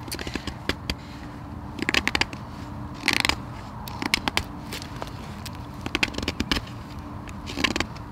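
Hook knife paring shavings from the bowl of a green-wood spoon, cutting with the grain: about five short strokes, each a quick crackly cluster of slicing clicks.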